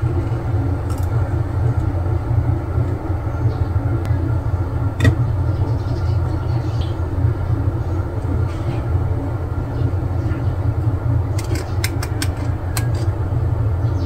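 A steady low hum, with a few light clicks and taps from small plastic Nendoroid figure parts and a display stand being handled: one about five seconds in and a cluster near the end.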